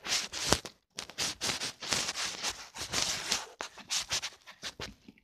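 Fingers pressing and kneading clear yellow slime packed with small beads, making a run of quick crackles, pops and squelches, with a brief pause about a second in.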